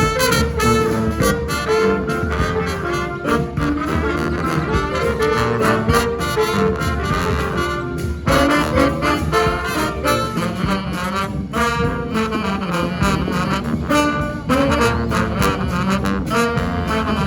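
Brass band playing an up-tempo original tune: horns in full voice over drums and a low bass line.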